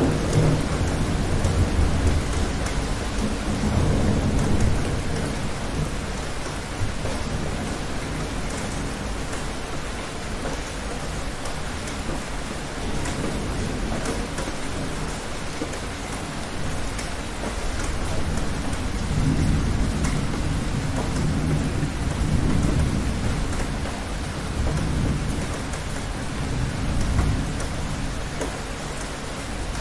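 Steady rain with rolling thunder: a long low rumble in the first few seconds, and another starting a little past halfway that goes on for several seconds.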